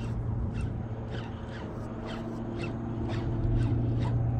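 Birds calling over and over in short, harsh, downward-sliding calls, a few each second and unevenly spaced, over a steady low hum.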